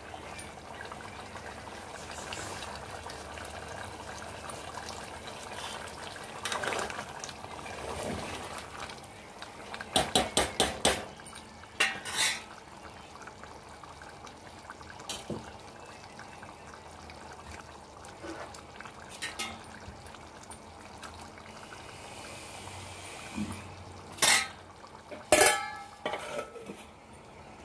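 A steel spoon stirring thick chicken curry in an aluminium pot, with a quick run of about five metal clinks about ten seconds in and another just after. Near the end, two louder metal clanks as a steel plate is set on the pot as a lid.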